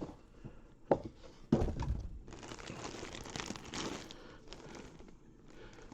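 Box packaging being handled: a sharp knock about a second in and a thump half a second later, then a few seconds of crinkling and rustling.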